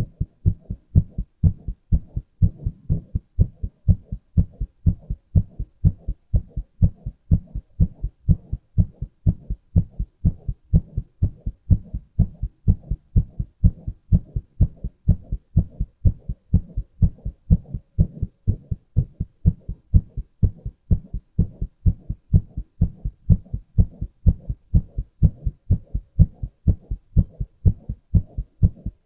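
A man's heartbeat, heard as a steady, regular train of low lub-dub thumps in close pairs.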